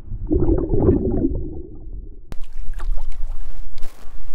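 Muffled gurgling and sloshing of water heard from a camera held underwater. About two seconds in it cuts to open air, with a thin hiss and scattered light knocks and rustles.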